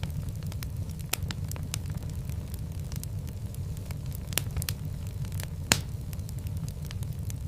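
Wood fire in a fireplace crackling and popping over a steady low rumble of the flames, with one louder pop near the end.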